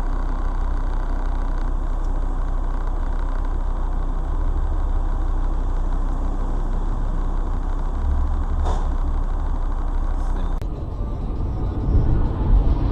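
Car driving: steady engine and road noise, strongest in the low end, with a brief click about nine seconds in. The noise changes abruptly about ten and a half seconds in.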